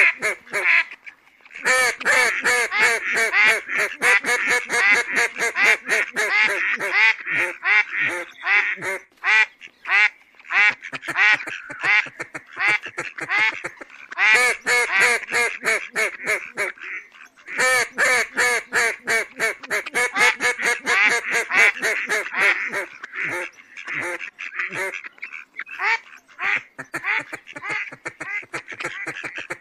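Mallard ducks quacking in rapid runs of several calls a second, broken by short pauses.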